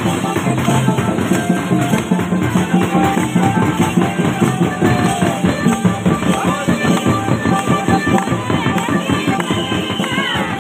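Live Santhali folk dance music: a mandar drum beaten in a quick, steady rhythm, with held melody tones over it.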